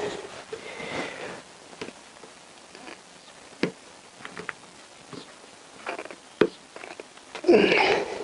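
Ratchet tightening the damper-rod bolt in the bottom of a motorcycle front fork leg: scattered short clicks, roughly one a second, with loud breaths at the start and near the end.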